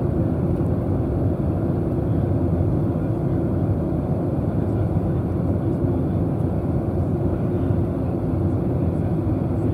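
Steady low cabin noise of a Boeing 737 jet airliner in flight: engine and airflow noise heard through the cabin wall, even and unbroken.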